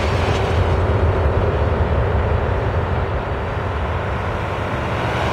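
Jet noise from a Boeing E-6B Mercury's four CFM56 turbofans during the landing rollout, the engines spooled up in reverse thrust to slow the aircraft: a loud, steady, deep rumble that eases slightly near the end.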